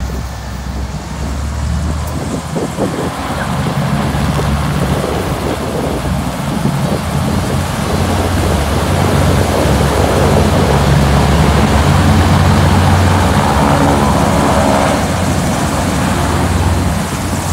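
Passenger hovercraft's engines and twin ducted propellers running as it manoeuvres: a steady low drone with a broad rush of air, growing louder through the first half and easing a little near the end.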